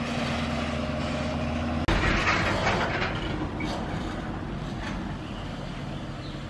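Heavy-duty pickup truck towing a loaded car-hauler trailer, its engine running with a steady hum as it approaches; about two seconds in the sound cuts to the same rig much closer and louder, engine running with a rushing noise that slowly eases off.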